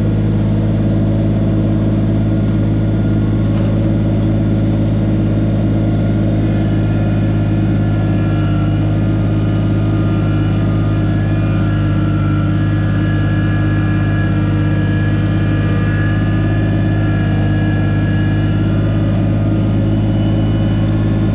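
Kubota BX25 subcompact tractor's three-cylinder diesel engine running steadily above idle, with a faint higher whine coming and going in the middle.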